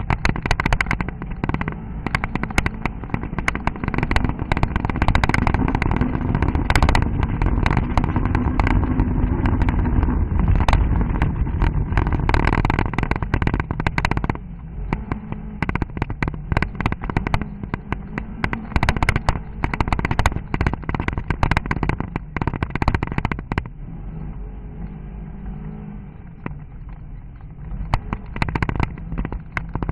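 A car engine pulls over a rough stony track, heard from inside the cabin, with constant clatter and knocks from stones and the suspension. The engine is louder through the first half and eases off sharply about halfway through, then runs quieter until near the end.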